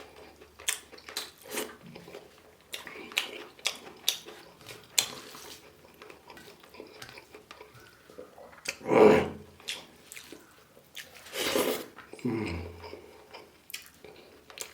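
Close-up eating sounds: many short wet clicks and smacks of a mouth chewing, with two louder, longer noises about nine and eleven and a half seconds in.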